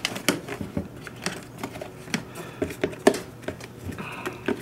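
Scattered light clicks and knocks of hard plastic as a BMW S1000RR airbox is handled, its cover clamps worked and the stock paper air filter lifted out of the housing.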